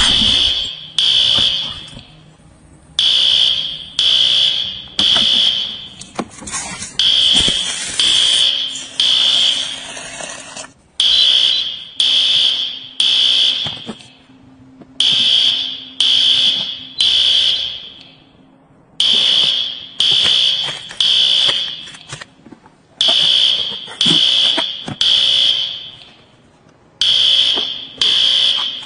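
Smoke alarm sounding in the three-beep evacuation pattern: three loud, high beeps, then a short pause, repeating about every four seconds. This is the pattern that signals smoke or fire detected.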